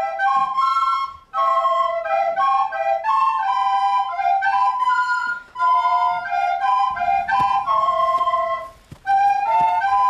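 A group of children playing a tune together on wooden recorders, several notes sounding at once, with brief breaks between phrases.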